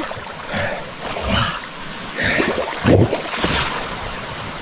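Water splashing in several irregular bursts, as a large body moves through a waterfall pool.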